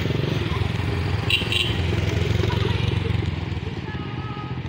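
Small motorcycles riding past close by with their engines running, over the lower running of heavier vehicle engines. The engine noise eases off about three seconds in.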